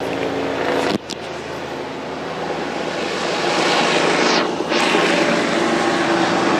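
Helicopter flying low overhead: loud, steady engine and rotor noise that grows louder over several seconds.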